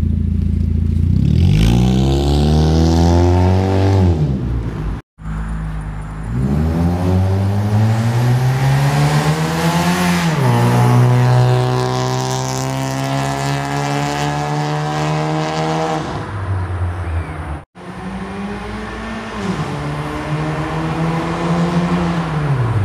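A Honda Stream RSZ's four-cylinder engine heard through its new custom stainless steel downpipe and full stainless exhaust, revving up as the car pulls away and accelerating past, rising in pitch and then easing off. The sound comes in three short clips with abrupt cuts between them.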